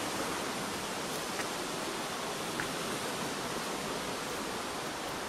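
Steady rushing of a mountain torrent cascading over rocks in a gorge.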